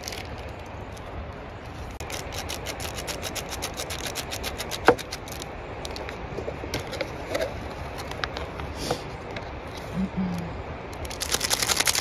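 Plastic food packets and a bread bag crinkling and rustling as they are handled and torn open, with scattered crackles that turn into a dense burst of rapid crackling near the end.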